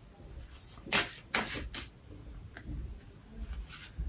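Tarot cards being handled: a cluster of short papery swishes and snaps about a second in, then a few fainter rustles.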